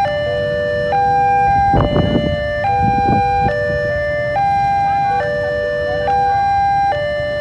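Railway level-crossing warning alarm sounding while the barrier is down: an electronic tone stepping between three pitches, each note held just under a second, repeating steadily. A short burst of low rumbling traffic noise rises under it about two seconds in and again near the three-second mark.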